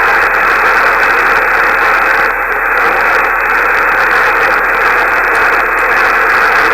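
Steady static hiss from an amateur radio receiver between transmissions, narrow and band-limited like audio from a radio speaker.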